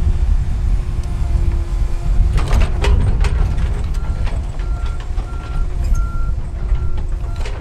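Hydraulic excavator's diesel engine running under load as the bucket scrapes and spreads loose soil, with a few sharp knocks and clanks a couple of seconds in. From about halfway, a short high beep repeats about every half second.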